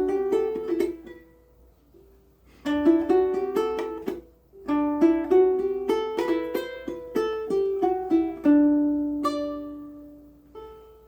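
Ko'olau C200 ukulele with aNueNue Green Planet strings, played as a picked melody of single notes and chords. There are two brief pauses, and near the end a long note rings out and fades.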